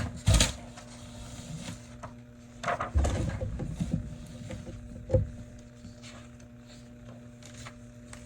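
Picture book being handled as a page is turned: a few dull thumps with paper rustling, about a third of a second, three seconds and five seconds in, over a steady low hum.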